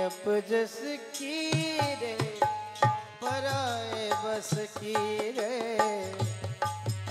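Instrumental interlude of a live Rajasthani bhajan: a sustained, gliding melody line over repeated hand-drum strokes with a deep bass boom, as from a tabla or dholak.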